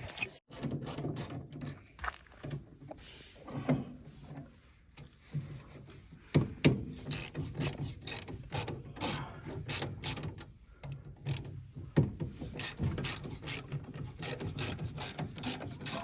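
Irregular clicks, knocks and scraping from hands-on cleaning of a combine harvester's grain passages, with a loud knock about six seconds in and a low hum under it.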